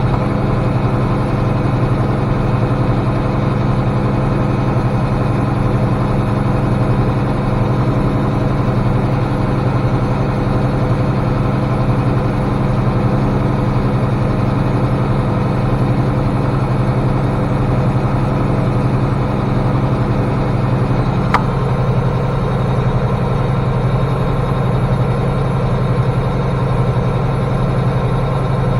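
International 1086 tractor's turbocharged six-cylinder diesel running steadily at a low, even speed, with a single sharp click about 21 seconds in.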